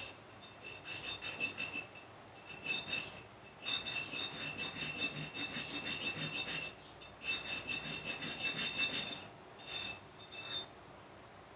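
Rusted metal being scrubbed or filed by hand: rapid back-and-forth abrasive strokes in four runs with short pauses between, the metal giving a thin high ring while it is worked.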